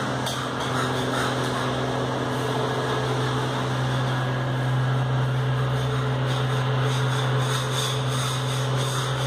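Spatula scraping excess wall texture off a freshly textured wall in repeated strokes, over a steady low hum.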